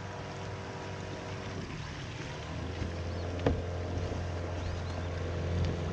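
Boat motor running steadily as the boat moves across open water, with a single sharp knock about three and a half seconds in.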